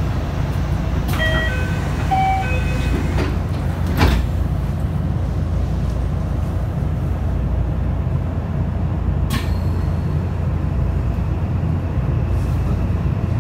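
JR West 227 series 1000 train at a station stop. A short electronic door chime of two pairs of notes sounds about a second in, then the sliding doors close with a sharp thud about four seconds in. The train's low hum runs steadily underneath, with another small click a little after nine seconds.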